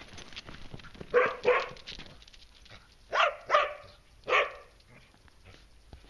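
A collie barks five times: two quick barks, two more about two seconds later, then a single bark.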